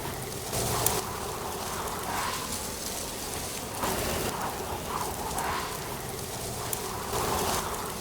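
Autumn wind blowing through dry leaves: a steady rustling hiss that swells and eases every second or two, with a few faint clicks.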